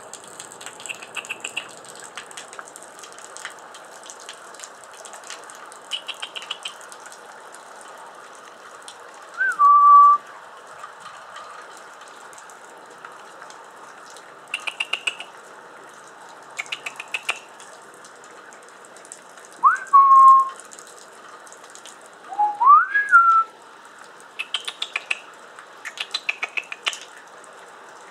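Steady rain, with quick bursts of rapid high chips from a perched male Anna's hummingbird. Three louder whistled notes come at intervals: two slide down and hold briefly, and one rises.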